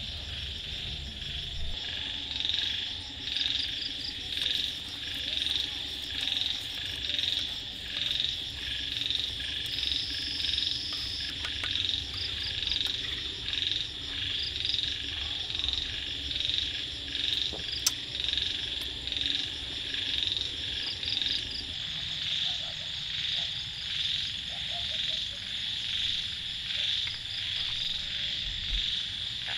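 A rhythmic chorus of calling frogs, high-pitched and pulsing a little more than once a second, with a single sharp click a little past halfway.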